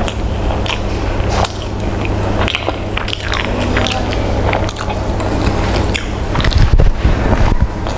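Close-miked eating: a person biting and chewing food in an irregular run of short wet clicks and smacks, over a steady low hum.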